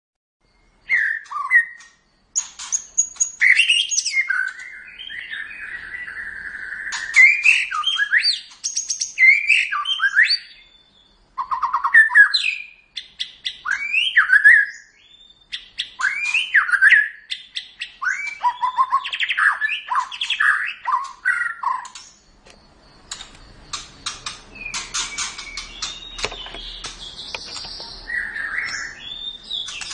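White-rumped shama (murai batu) singing: a long run of varied whistled phrases with sweeping notes and quick rattling clicks, separated by short pauses.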